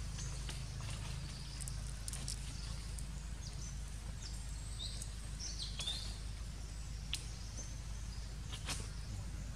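Outdoor ambience: a steady low rumble, with a few short bird chirps about halfway through and scattered faint clicks.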